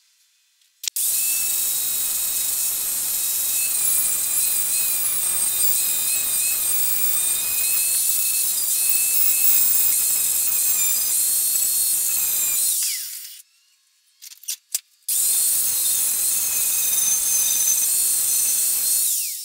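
Makita angle grinder running in two bursts, about twelve seconds and then about four, a steady high whine over a hiss, winding down after each switch-off, grinding small steel patch pieces. A few clicks in the pause between the bursts.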